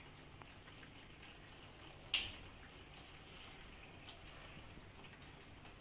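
Quiet kitchen room tone with a faint steady hiss, and one sharp click about two seconds in.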